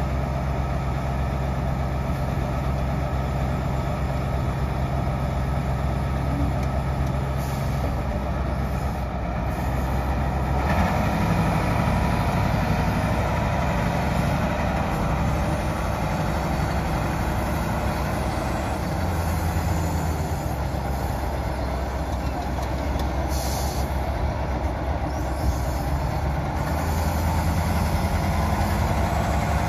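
Caterpillar 613C elevating scraper's diesel engine running as the machine drives slowly, a steady drone that steps up to a higher, slightly louder note about ten seconds in.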